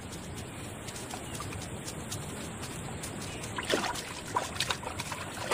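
Water sloshing and splashing as Buffon's kob wade into a waterhole to drink: a steady hiss at first, then a run of short splashes from about halfway on.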